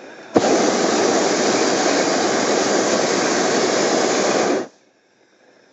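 Hot air balloon's propane burner firing in one loud, steady blast of about four seconds, starting abruptly and cutting off suddenly.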